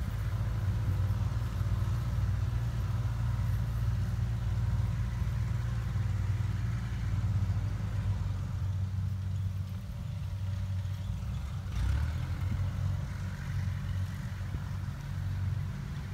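Rice combine harvester engines running steadily, a low hum with no rise or fall.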